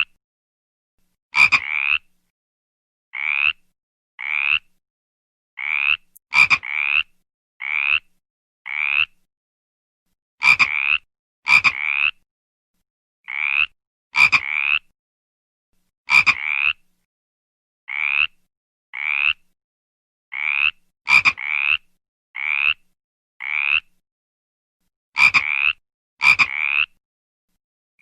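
Frog croaking over and over: short calls of about half a second with a rising sweep, some starting with a sharp click. They come singly or in quick pairs every second or two, with dead silence between.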